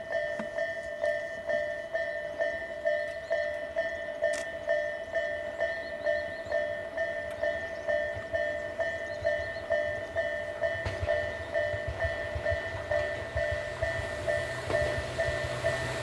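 Level-crossing warning bell ringing steadily at about two strokes a second. In the second half the low rumble of an approaching Tobu 6050 series electric train builds under it.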